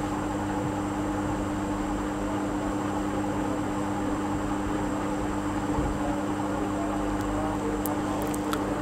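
Steady background hum with a constant low tone and a faint hiss, with a few faint clicks near the end.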